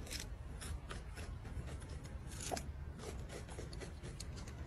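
Faint, scattered scratching and rustling over a low steady rumble.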